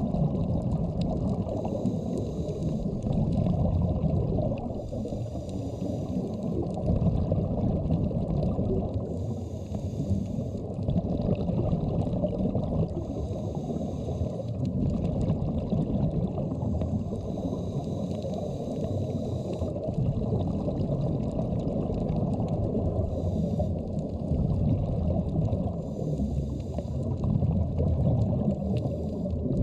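Underwater ambience: a steady, muffled low rumble with a scuba diver's regulator breathing, each breath a short hiss about every four seconds.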